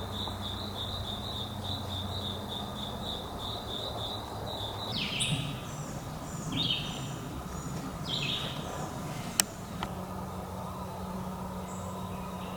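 Evening woodland sounds: an insect chirping in even, high-pitched pulses that stops about five seconds in, then three bird calls about a second and a half apart, and a single sharp click near the end.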